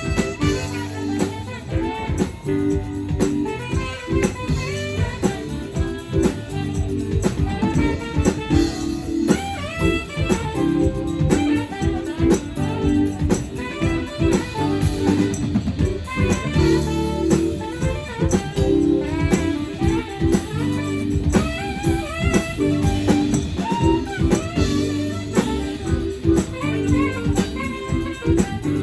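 A live rock band playing: electric guitar lines over drum kit and bass.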